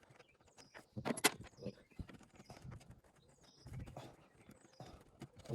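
Irregular clicks and light knocks of hand tools and screws on metal as a Land Rover Defender's bulkhead flap is screwed back in place, the sharpest knock about a second in.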